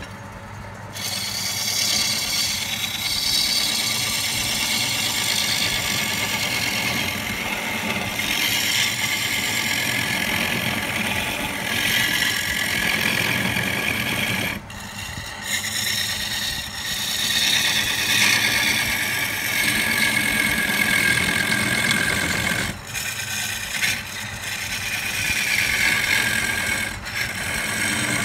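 Wood lathe running with a gouge cutting into the spinning wood: a loud rasping hiss of shavings over the steady hum of the lathe. The cutting starts about a second in and drops out briefly twice, about halfway through and again a few seconds later.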